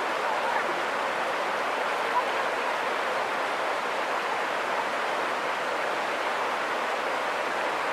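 River rapids rushing steadily over rocks, a constant even hiss of moving water.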